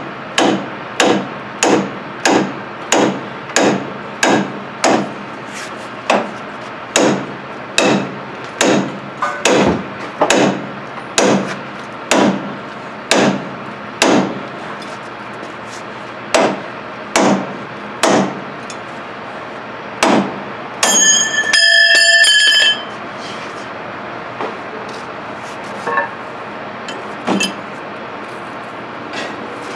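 Hammer blows on the rusted steel steering knuckle of a 2001 Dodge Dakota, about two strikes a second, knocking it loose from the suspension. The blows stop briefly at times. About two-thirds through, a short high ringing tone sounds, and after it come only a few more blows.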